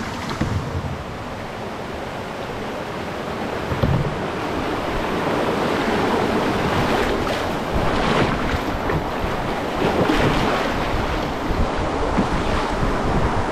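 Rushing white water of a shallow river rapid around an open canoe. It grows louder about four seconds in as the boat runs down into the rapid, then stays steady.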